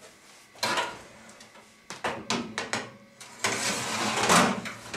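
Oven door opened and a metal baking tray of bread rolls slid in onto the rack: a few sharp clicks and knocks, then a longer scraping rattle near the end, the loudest part.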